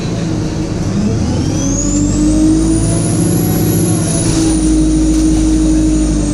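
Diesel bus engine pulling under load with a high turbocharger whine that rises in pitch from about a second in, peaks around halfway and stays high to the end.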